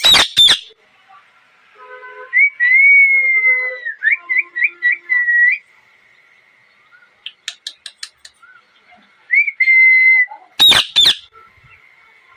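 Ringneck parakeet calling: a loud, harsh screech right at the start and another near the end. In between it gives whistled notes: a long held whistle, then a quick run of four or five short rising whistles, and later another brief held whistle.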